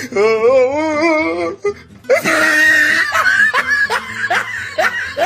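A wavering, warbling tone lasting about a second and a half, then laughter over background music.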